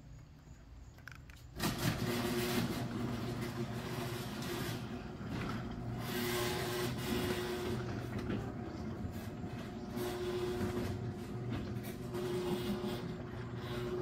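Single-car sectional garage door closing under its electric opener: the motor runs with a steady hum as the door travels down. It starts about a second and a half in and stops as the door reaches the floor near the end.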